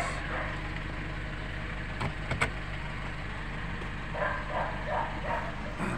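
Low steady rumble of the Nissan Terra idling, heard inside the cabin, with two short clicks a little after two seconds in.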